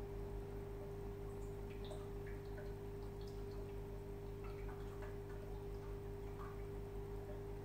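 Aquarium equipment running: a steady hum with one constant tone, and scattered small drips and plinks of water throughout.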